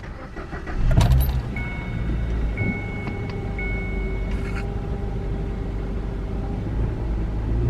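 Kia Ceed's 1.6 G4FG four-cylinder petrol engine starting with a click about a second in, then idling cold with a steady low rumble. A dashboard warning chime beeps three times soon after the start.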